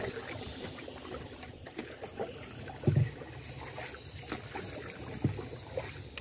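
Small wooden river boat under way: a steady low rumble with water noise, and two dull thumps about three and five seconds in.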